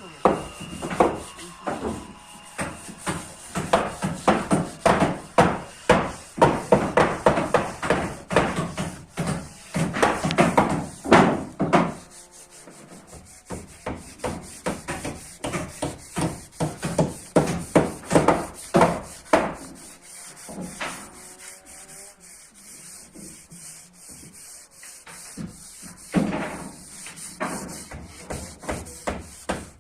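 Rhythmic rubbing or scraping strokes, about two a second, loud at first, fainter from about twelve seconds in, and stronger again near the end.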